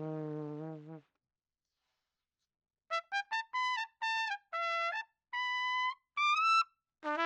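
Solo trumpet played into a Shure SM57 dynamic microphone, raw and unprocessed. A low held note fades out about a second in, followed by a gap of silence. Then comes a run of quick short notes settling into several longer held notes, played with the bell backed off from the mic and angled away, and another phrase starts just at the end.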